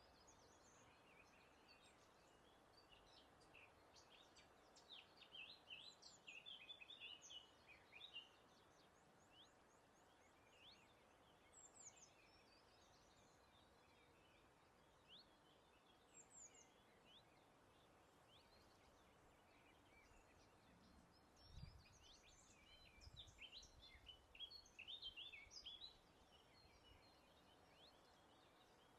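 Wild songbirds chirping and singing faintly, in two bursts of rapid high chirps with scattered single calls between, over a soft steady breeze.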